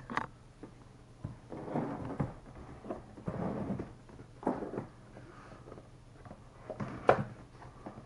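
Cardboard keyboard box being handled and turned on a desk: scattered rustles and scrapes, with a couple of sharper knocks, the loudest about seven seconds in.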